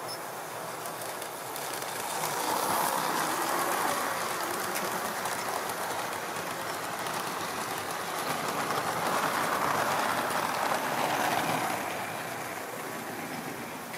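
Tri-ang model train with blue-and-grey coaches running on the layout's track, a steady rattle of wheels on rail. It swells louder twice, about three and ten seconds in, as the train passes close by.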